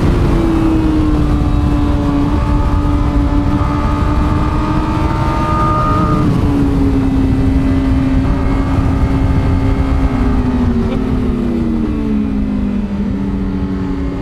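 2021 Honda Fireblade SP's inline-four engine running at high revs on track, heard over heavy wind rush. The engine note holds steady, drops a step about six seconds in, then falls away over the last few seconds as the revs come down.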